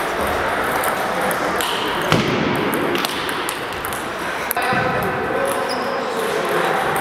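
Table tennis ball clicking sharply off rackets and the table during a rally, a few separate hits, the loudest about four and a half seconds in, over a steady murmur of voices in the hall.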